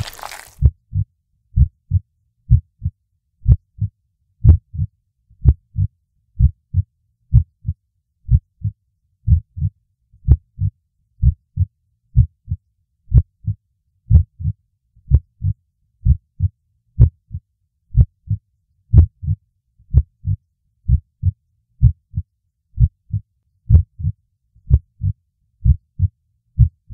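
Heartbeat sound effect: low paired lub-dub thumps repeating steadily about once a second.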